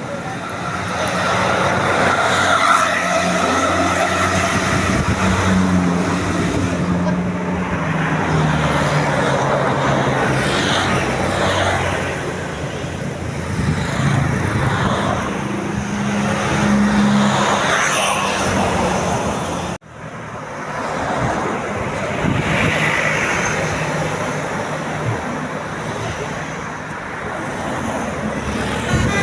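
Large bus engines running as buses drive past, with road noise; the engine note shifts up and down, and the sound breaks off abruptly for a moment about two-thirds of the way through.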